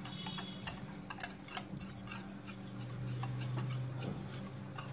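Wire balloon whisk beating semolina and curd batter in a glass bowl: quick, irregular clicks and taps of the wires against the glass with the wet swish of the batter. A faint steady low hum runs underneath.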